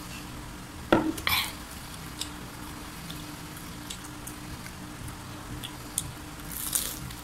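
Mouth sounds of eating and drinking: a loud gulp of soda from a glass about a second in, then a crunchy bite into battered fried chicken near the end. A few small clicks and a faint steady hum lie under them.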